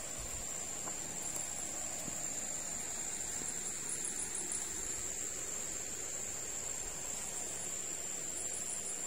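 Crickets trilling at night: a steady high-pitched trill, joined twice by a short burst of rapid higher chirps, about four seconds in and near the end, over a steady low hiss.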